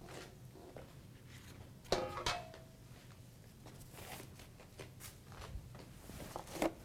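Large stainless steel mixing bowl set down on the counter: two sharp clanks about two seconds in, with a short metallic ring. A smaller knock near the end.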